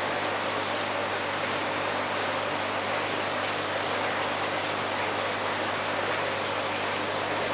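Steady rushing of aquarium water from the tank's filter and airstone aeration, with a low steady hum underneath.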